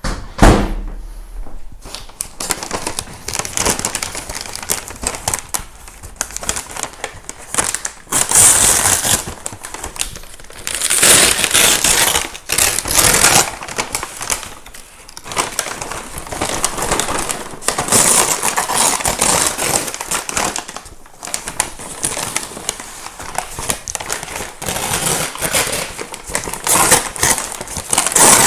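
Dense crackling and crinkling from a paper bag of microwave popcorn, swelling and easing every few seconds, with a dull thump right at the start.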